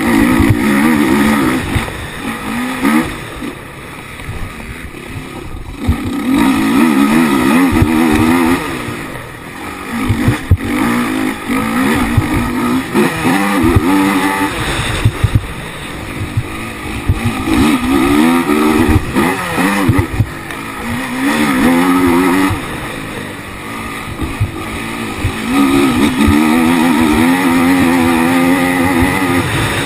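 Honda racing quad's engine heard from the onboard camera, revving hard and climbing in pitch in long pulls, easing off between them every few seconds. Many knocks and rattles run through it.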